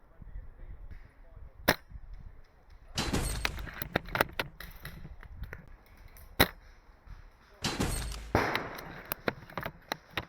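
Spring-powered SSG96 A1 airsoft sniper rifle firing: two loud sharp cracks about five seconds apart, with smaller clicks and two short bursts of rustling noise between them.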